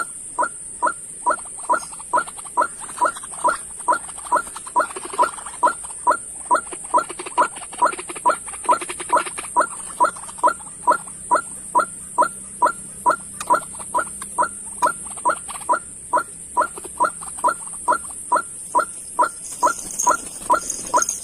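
A bird call repeated over and over, about twice a second and very evenly, each a short sliding note, as used to lure birds toward a trap. A steady high-pitched buzz runs underneath it.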